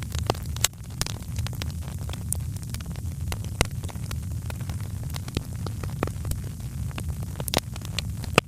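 Wood fire crackling in a fireplace: a steady low rumble of burning under frequent, irregular sharp pops and snaps, a few of them louder than the rest.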